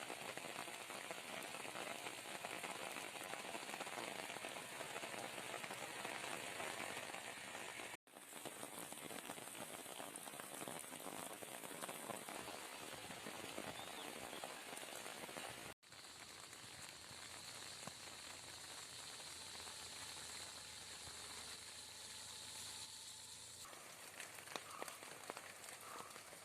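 Monsoon rain falling steadily, an even hiss, broken by two brief gaps about 8 and 16 seconds in. A few faint drips tick near the end.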